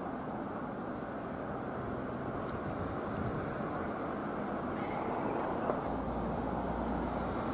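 Steady outdoor background rumble with no distinct events; a deeper low rumble joins about six seconds in.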